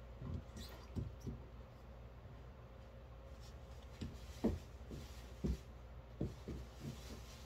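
Soft, irregular knocks and handling noises of painting at a table, such as canvases and brushes touching the tabletop, about eight in all, over a low steady hum.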